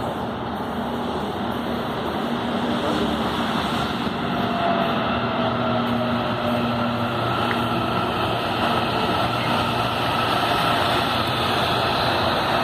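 CPTM Series 7500 electric multiple unit running into the station along the platform, with a steady rumble of wheels on rails that grows louder as it nears. A faint electric motor whine falls in pitch partway through.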